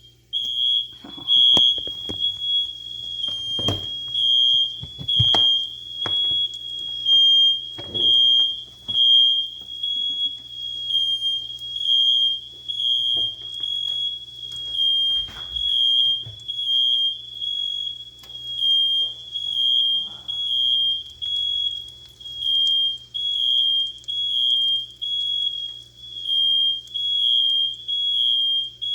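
Smoke alarm sounding: a steady, piercing high-pitched tone that pulses about once a second, set off by smoke from waffles being toasted. Scattered knocks and clatters sound in the first half.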